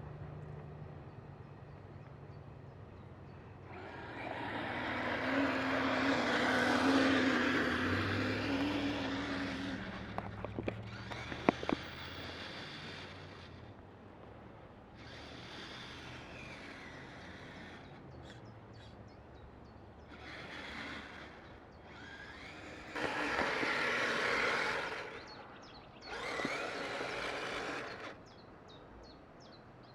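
Kyosho Blizzard SR radio-controlled tracked vehicle driving in several bursts of throttle, its electric motor and tracks starting and stopping sharply, with a steady hum in the longest run. A few sharp clicks come about eleven seconds in.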